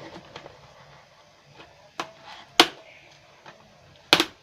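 Instant noodle cups being handled and set down on a table, making a few sharp knocks. One comes about two seconds in, a louder one half a second later, and another loud one near the end, with faint taps and rustles between them.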